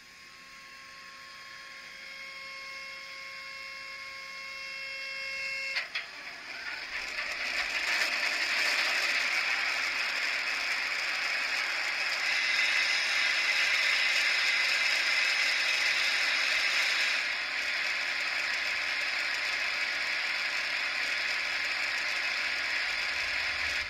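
Digital diesel-locomotive sound from the ESU LokSound 5 decoder in an H0 model of an ÖBB class 2068, played through the model's two small speakers. A steady whining tone grows louder for about six seconds, then the engine sound starts suddenly and runs on steadily: the locomotive's sound start-up sequence.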